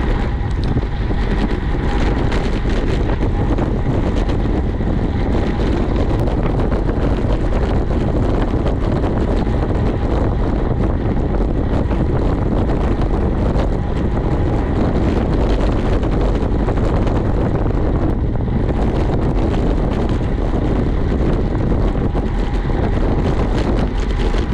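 Steady wind rush buffeting the microphone of a camera on a road bike ridden at speed, heaviest in the low rumble.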